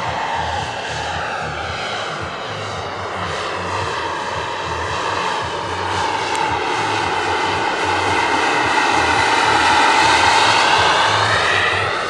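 Turbine-powered scale model helicopter (Eurocopter EC135) flying: the small gas turbine whines steadily along with rotor noise, and its tone sweeps as the model moves. It grows louder to a peak near the end, then eases off.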